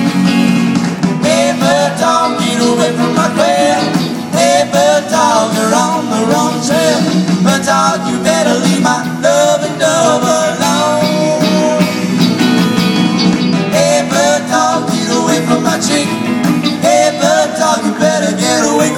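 Live rock band playing: electric guitars over a drum kit, amplified through the stage PA.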